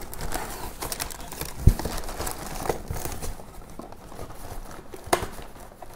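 Packaging crinkling and rustling as packets of fishing crimps are handled, with a sharp knock about a second and a half in and a click near the end.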